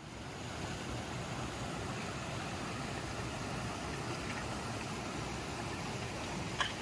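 Steady rushing noise that fades in at the start, with one short click near the end.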